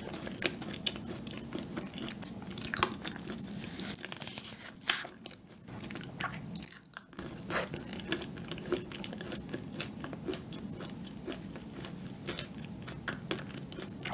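Close-miked chewing and mouth sounds of a person eating a soft cup pudding dessert: many small wet clicks and smacks, over a steady low hum.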